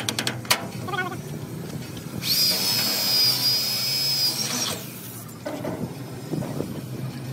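Power drill running in one burst of about two and a half seconds, starting about two seconds in. Its high motor whine rises as it spins up, then holds steady until it stops.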